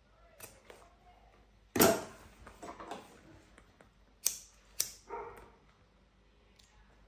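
A dog barks, loud once about two seconds in and more softly about five seconds in. In between, a lighter is flicked twice in quick succession.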